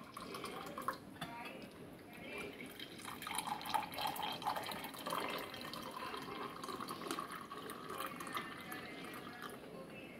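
Cold tea poured in a thin stream into a glass mug, trickling and splashing as the mug fills.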